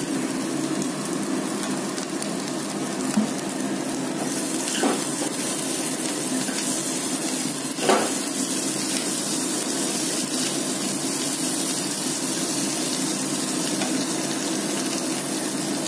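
Fried potatoes, onions and green chillies sizzling steadily in oil in a kadai while a spatula stirs and scrapes them, with a few brief spatula knocks about three, five and eight seconds in.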